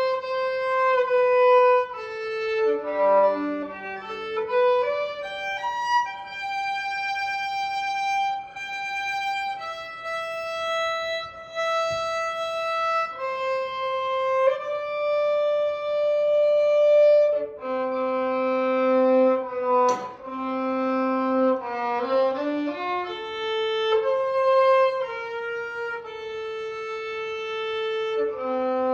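Background music: a slow melody of long held notes on a bowed violin, with two notes sounding together at times. A brief click about twenty seconds in.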